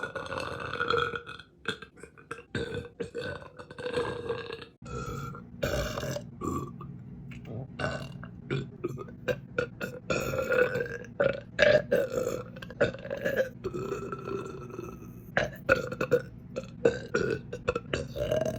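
A woman belching over and over: a run of long, pitched burps one after another.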